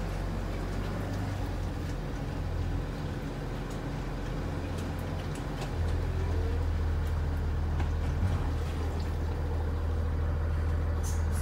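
School bus engine running at low speed under a haze of floodwater surging and splashing against the bus as it wades through a flooded street. The engine drone gets a little louder about six seconds in.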